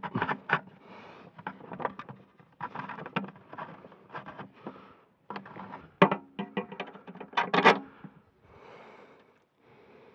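Irregular clicks, taps and rattles of hand work on a tractor cab roof as a work light and its wiring are handled and fixed in place. The sharpest knocks come about six and seven and a half seconds in.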